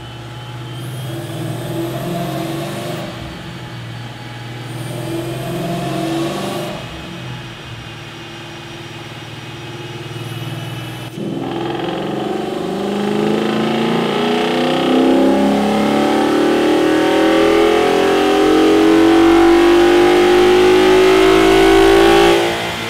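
2013 Mustang GT's 5.0-litre Coyote V8, fitted with a cold air intake and 90 mm throttle body, idling with a few short revs. About halfway through it makes a full-throttle dyno pull, its pitch and loudness rising steadily for about ten seconds before it cuts off sharply near the end.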